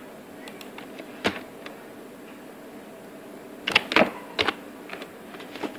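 Sharp clicks of a computer keyboard and mouse: one about a second in, a quick cluster around four seconds, and another near the end, over a steady low hum.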